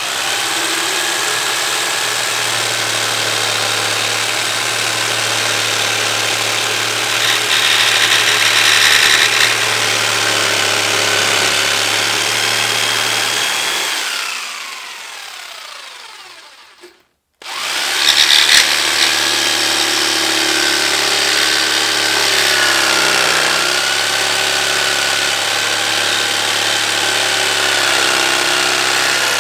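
Electric jigsaw running and cutting a curve into a wooden board. The buzz gets louder and brighter for a couple of seconds while the blade bites. About halfway through the motor winds down with a falling whine, then after a brief break it runs steadily again.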